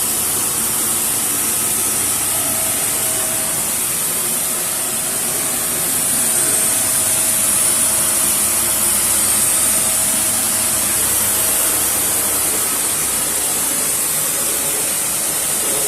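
Toy Bosch vacuum cleaner's small electric motor running steadily, with a high hiss, as it sucks up kinetic sand.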